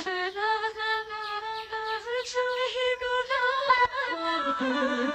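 A high voice singing long held notes in a simple melody, stepping down to lower notes about four seconds in.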